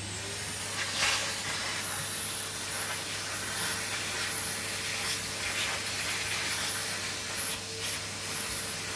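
Henry XL cylinder vacuum cleaner just switched on, its motor rising to speed in the first moment and then running steadily with a rushing suction noise.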